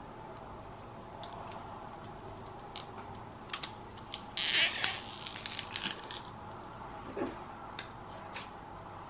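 Metal garlic press crushing a garlic clove: small metal clicks from handling the press, and a louder crunching burst lasting under a second about four seconds in as the clove is squeezed through, followed by a few more clicks as the garlic is scraped off.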